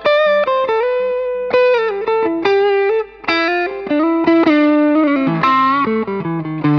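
Soloqueen Telecaster-style electric guitar played through an amp: a melodic lead line of single picked notes, one after another, each ringing on until the next.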